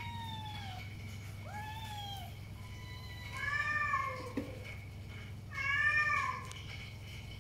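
Young kittens mewing: four high, thin mews that rise and then fall in pitch, the last two louder and longer. A steady low hum runs underneath.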